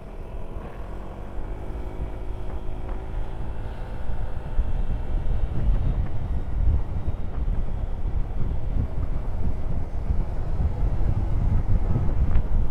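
Motorcycle riding at speed, its engine running under a heavy rush of wind on the microphone. The rumble grows louder about four seconds in.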